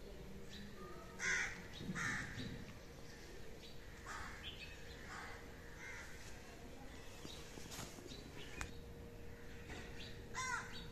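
Crows cawing: a handful of short, harsh calls spread through, the loudest two coming a second or two in and another near the end.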